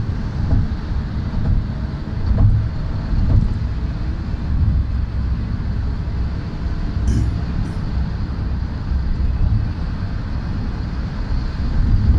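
Steady low road and engine rumble heard from inside a moving vehicle at highway speed. Two short high clicks come about seven seconds in.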